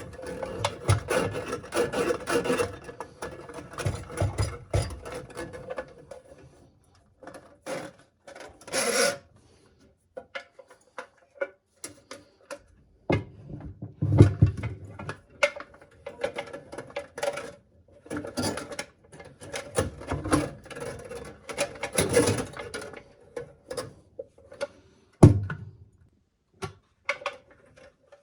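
Drain snake cable being worked against a clog in the drain pipe: irregular scraping and rattling with sharp clicks, in uneven bursts broken by short pauses.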